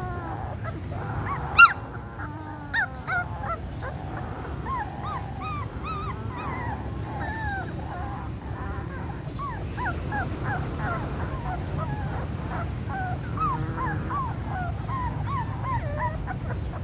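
A litter of young puppies whimpering and squeaking, a steady run of short high squeals, with one sharper, louder yelp about a second and a half in.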